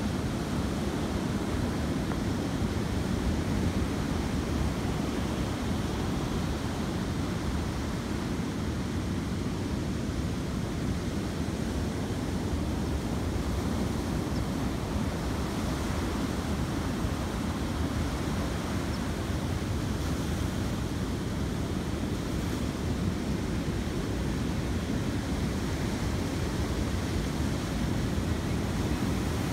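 Ocean surf breaking and washing up over sand and around a rock jetty: a steady, continuous rushing wash with no single crash standing out.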